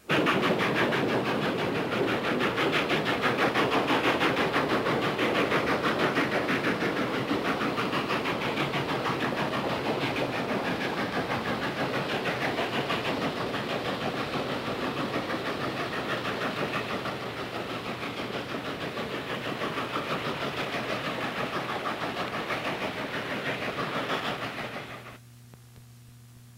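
Steam locomotive running at speed: a steady rush of exhaust chuffs and hiss with a fast, even beat. It starts abruptly and fades out near the end.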